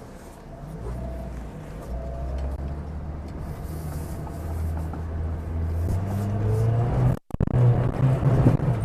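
Leopard Black King Kong 4x4's 2.4-litre engine pulling under load off-road, its pitch rising as it revs up about six seconds in. The sound drops out for an instant just after, then returns louder with a few light knocks.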